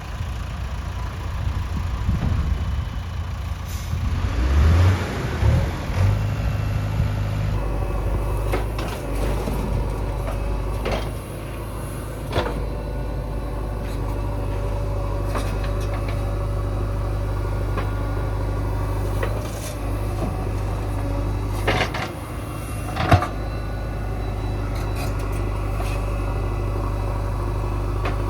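Heavy diesel engine running steadily, revving up briefly about five seconds in, with scattered clanks and knocks; the loudest is a sharp bang a little over 23 seconds in.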